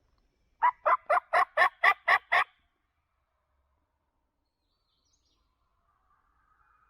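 A run of eight loud, evenly spaced turkey yelps at about four a second, lasting about two seconds.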